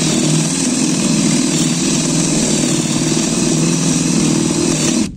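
DeWalt cordless drill/driver in high gear boring into very hard, dry raulí wood with a dull spade bit: a steady motor whine with the rasp of the bit cutting, which stops abruptly about five seconds in.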